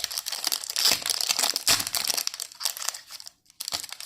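Foil wrapper of a Yu-Gi-Oh booster pack crinkling as it is torn open and handled, a dense run of crackles that thins out near the end.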